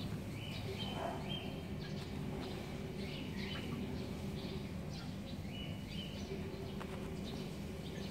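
Small birds chirping over and over in short notes, over a steady low hum of background noise.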